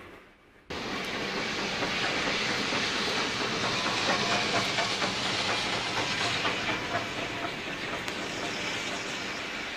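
Steam locomotive running with a steady hiss of steam and faint clicking of wheels over the rails. The sound cuts in abruptly after a brief silence at the start.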